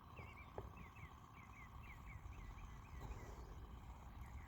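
Faint birdsong: a songbird giving runs of short, quick, up-and-down notes, one series after another, over a low steady rumble.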